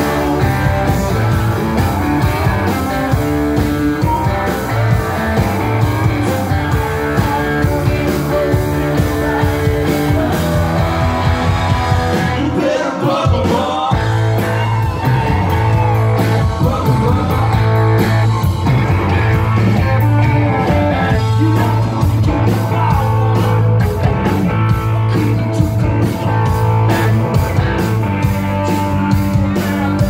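Live rock band playing: a man sings over an electric guitar and drums. About twelve seconds in the low end drops out for a moment in a short break, then the full band comes back in with a steady drum beat.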